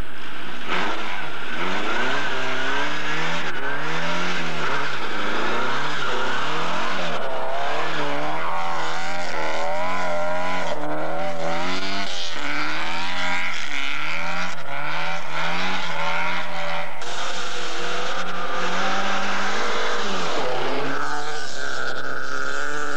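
Rally car engine revving hard, its pitch climbing and dropping again and again, every second or two.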